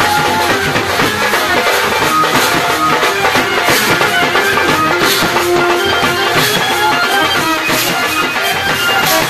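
Loud music with drums.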